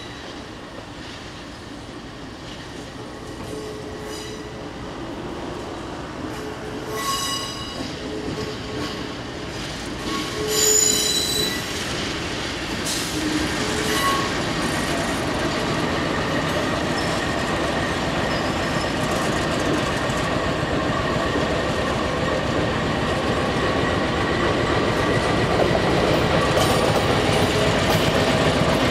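KiwiRail DXC-class diesel-electric locomotive 5391 approaching and rolling past slowly through a curve, its engine and wheel noise growing steadily louder. Wheels squeal on the curve, with two short high tones about 7 and 11 seconds in, the second the loudest moment.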